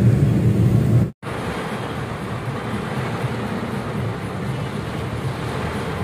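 Steady noise inside a moving car in heavy rain: rain on the windscreen and body with tyres hissing on the wet road. Just over a second in it cuts out briefly, then returns quieter, with less low rumble and more hiss.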